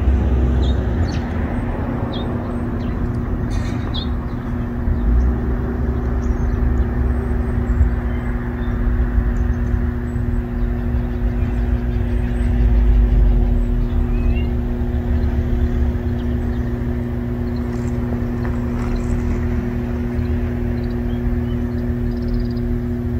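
A steady low hum holding two even tones over a low rumble that swells and fades, with a few faint, short high chirps now and then.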